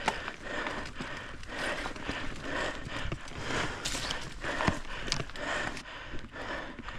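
Mountain bike rolling over a dirt trail: tyre noise in uneven swells, with short knocks and rattles from the bike over bumps.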